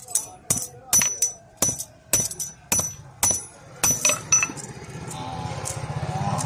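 Hammer striking a steel chain link held in pliers on an old steel disc used as an anvil: about eight sharp, ringing metal blows, roughly two a second, that stop after about four and a half seconds. A low engine drone then swells near the end.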